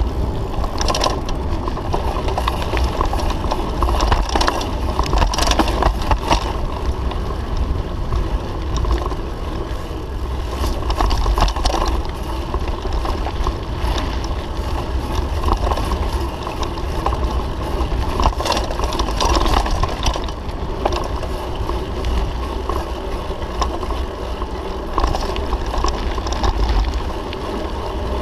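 Mountain bike riding a dirt and gravel forest road: wind buffeting the microphone as a steady low rumble, tyres crunching over the surface, and irregular rattles and knocks from the bike over bumps.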